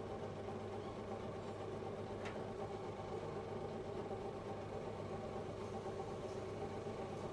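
Areca nut cutting machine running steadily, its motor giving an even mechanical hum, with a faint click about two seconds in.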